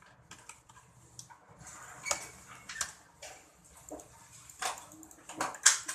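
Scattered clicks and taps from a computer keyboard and mouse, irregular, with the sharpest clicks about two seconds in and near the end.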